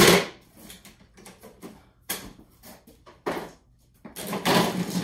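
A sharp plastic clack as the grass-catcher bag is taken off the back of a DeWalt cordless lawn mower. A few lighter knocks follow, then a rustle near the end.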